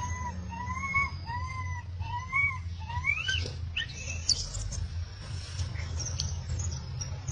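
Baby macaque crying: a string of about four short arched coos, one every half second or so, then a higher rising cry about three seconds in. After it come a few sharp clicks and brief squeaks.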